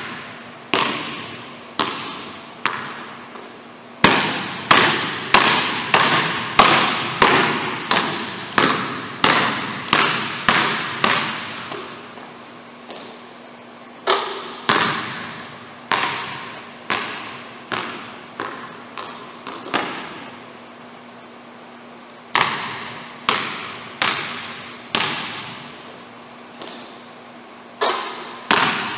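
Basketball bouncing on a hardwood gym floor: sharp thuds that ring in the echoing hall, in runs of about two bounces a second with short pauses between.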